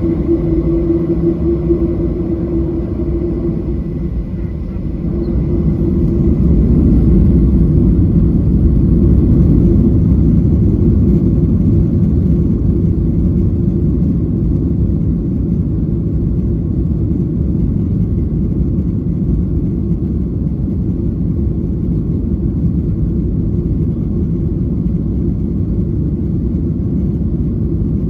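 Boeing 737-800's CFM56 jet engines and airflow heard inside the cabin as a steady, deep rumble, growing louder about six seconds in.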